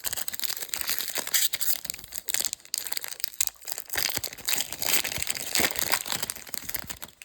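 Plastic trading-card pack wrapper being torn open and crumpled: a dense, irregular crinkling that stops near the end.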